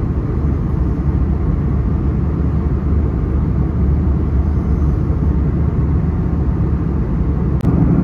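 Airliner cabin noise in flight: a steady low rumble of engines and rushing air. A single click comes near the end, after which the rumble is a little louder.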